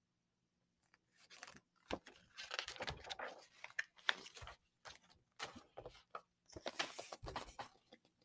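Pages of a large picture book being turned and handled: irregular soft rustles and crinkles of paper.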